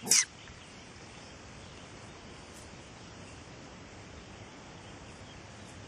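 Steady outdoor background noise in an open grassy field, an even hiss with no distinct events, opening with one brief loud sharp sound in the first quarter second.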